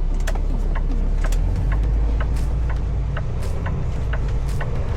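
Truck engine running at low speed, heard from inside the cab, its low rumble rising about a second and a half in. Over it the turn signal ticks steadily, about three clicks a second.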